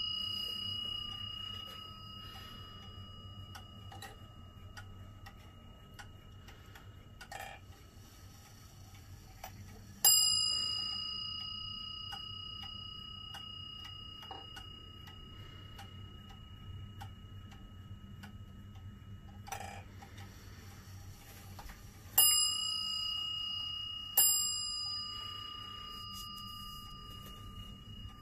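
Warmink Dutch Friese tail wall clock ticking steadily while its bell strike sounds as the hands are turned by hand. One stroke comes about ten seconds in and two more about two seconds apart near the end, each ringing out slowly over several seconds.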